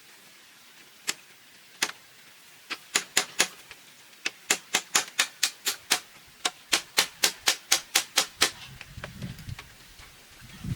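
Hand tool striking bamboo in sharp knocks: a few single blows, then a quick, even series of about four a second that stops shortly before a low rustling rumble near the end.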